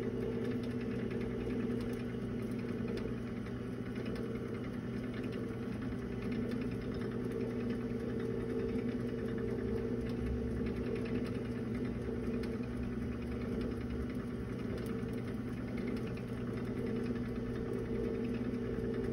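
Compact Showtime countertop rotisserie oven running, its spit motor giving a steady hum as it turns the spit.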